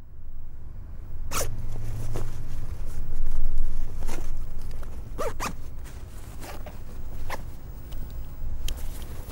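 A zipper being worked in short rasping pulls, about ten at irregular intervals, over a steady low rumble.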